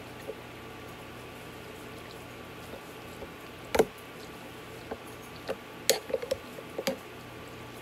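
Creamy noodles being tossed in a glass bowl with a metal serving utensil and a plastic spatula: soft wet squishing, with a few sharp clinks against the glass. The loudest clink comes just before four seconds in, and several more come between about five and seven seconds.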